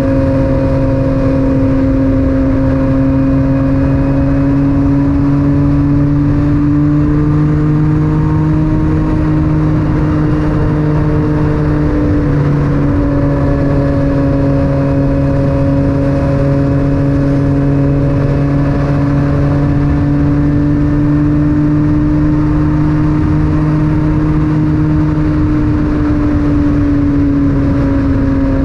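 Yamaha MT-09's three-cylinder engine through an Akrapovic titanium exhaust, heard from a helmet chin-mounted camera while riding at steady revs, its pitch rising and falling gently, over a steady rush of wind and road noise.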